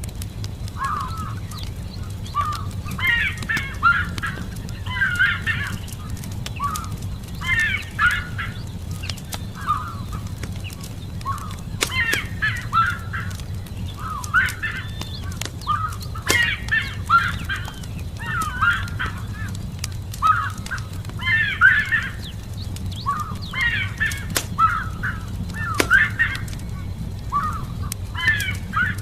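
Birds calling over and over in short bouts of curving, chattering notes. Under them, a campfire crackles with an occasional sharp pop, over a steady low rumble.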